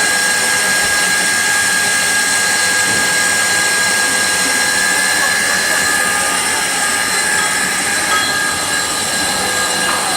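Heavy-duty CNC roll turning lathe running: a steady machine noise with several constant high-pitched whining tones over a hiss.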